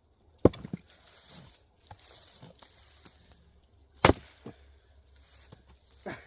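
Axe strikes splitting Douglas fir firewood: two sharp chops a few seconds apart, each followed by lighter knocks of the wood pieces.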